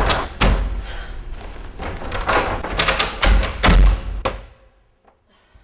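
A loud run of heavy thumps and knocks with deep bass, about two or three a second, cutting off abruptly about four and a half seconds in.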